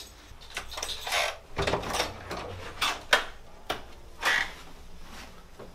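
Footsteps and a wooden dorm room door being unlatched and pushed open: a string of sharp clicks and knocks.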